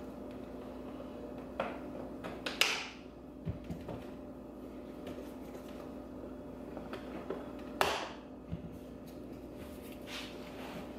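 Sharp plastic clicks and snaps from a C8 Corvette's center console side trim panel being worked loose from its tabs, the two loudest about two and a half seconds in and just before eight seconds, over a steady low hum.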